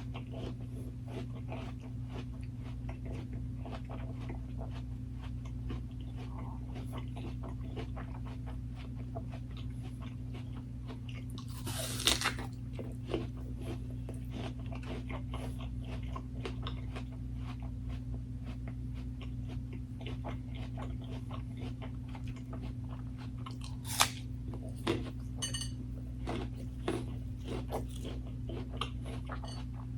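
Close-miked chewing and crunching of crisp food, with a loud crunchy bite about 12 seconds in and another about 24 seconds in, then smaller bites and wet chewing clicks.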